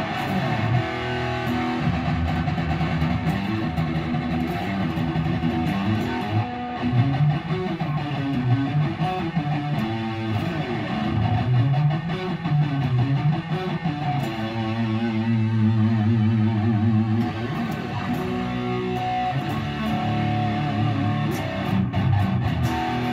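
Cheap Ibanez-copy electric guitar, rewired and set up again, played lead: a continuous run of melodic lines with held notes that bend in pitch.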